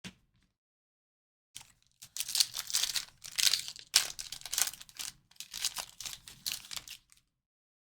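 Trading card pack wrappers being torn open and crinkled, a run of irregular rustling bursts lasting about five seconds.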